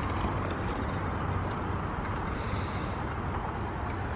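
Steady rumble of road traffic from a nearby motorway, with wind on the microphone.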